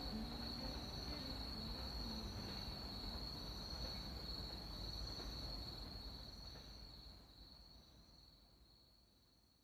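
Autumn crickets trilling in one steady, unbroken high note over a low background hum, the whole fading out over the last few seconds.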